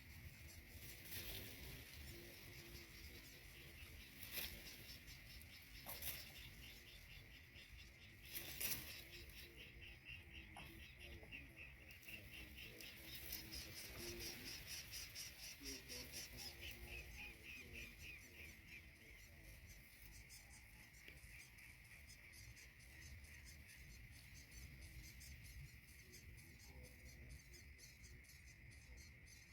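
Faint insects chirping: a steady high buzz with a fast pulsing trill that is strongest in the middle, and a few sharp clicks or rustles in the first several seconds.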